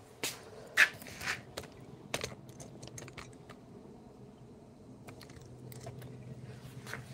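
Irregular sharp clicks and light knocks, as of small hand work on wood. The two loudest come close together about a second in, and they thin out after a few seconds. A faint steady low hum runs underneath.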